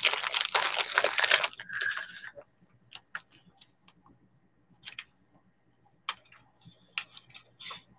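Packaging crinkling as it is handled, stopping about a second and a half in, then scattered light clicks and taps from small items being handled.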